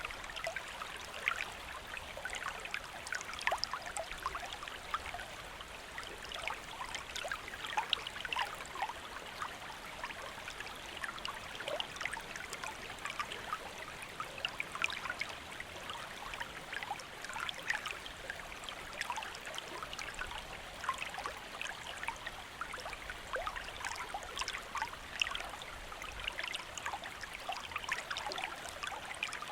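A small river or stream flowing steadily, with many small bubbling and trickling splashes over the constant rush of water.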